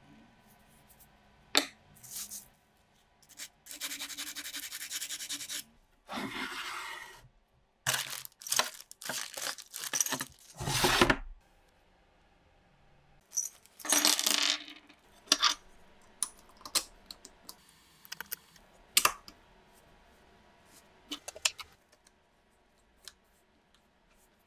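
Steel bayonet parts being worked and handled: two stretches of steady scraping a few seconds in, then a quick run of metal clinks and knocks ending in a heavier thud, followed by scattered sharp clicks and taps as the parts are fitted together.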